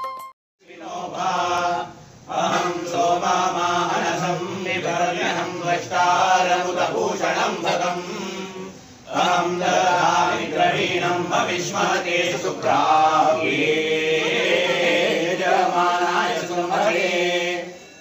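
Voices chanting a devotional recitation in a steady melodic line, with short breaks about two seconds in and again around nine seconds.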